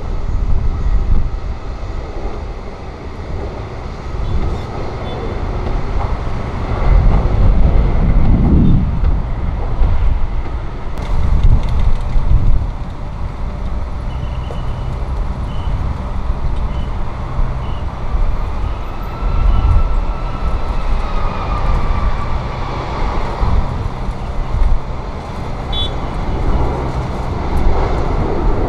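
Airbus A330 jet engines heard from outside the airfield: one airliner rolling along the runway after landing, then another on final approach with an engine whine that rises and falls in the second half. Gusty wind rumbles on the microphone throughout.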